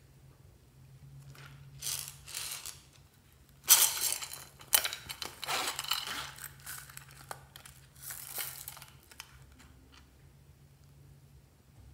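Zipper of a small pouch pulled open in scratchy, clicking runs. Softer rustles and a short rattle come as small plastic beads are tipped out of it.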